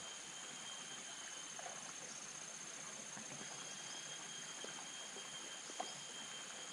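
Insects trilling steadily in a faint, high-pitched, unbroken drone, with one brief faint click near the end.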